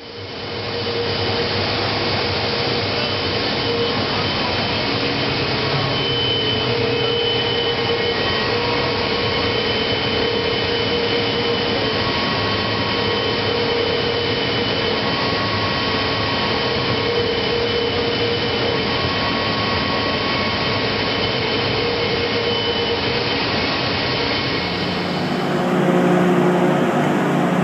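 Recycling machinery running under load: conveyor and magnetic separator equipment giving a loud, steady mechanical noise with a few faint whining tones. About 25 seconds in it gives way to a different machine, an eddy current separator, with a steadier low hum.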